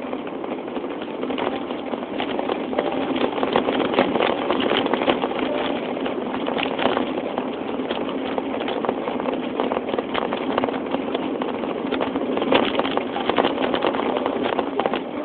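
An engine running steadily with a low hum, with many short clicks and knocks over it.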